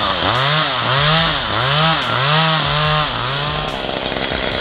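Two-stroke chainsaw cutting into wood, its engine pitch rising and falling about twice a second, then holding steadier near the end.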